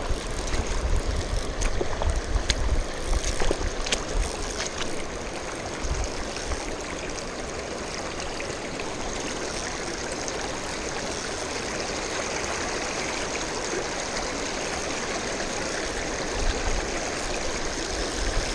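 River water running steadily over stones and shallows. In the first few seconds there are a few sharp clicks and some low rumble.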